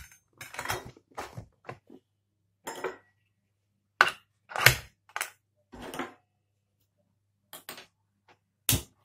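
Stainless steel pressure cooker lid being set on the pot and locked: a string of short metal clanks and clicks, with a sharper click near the end.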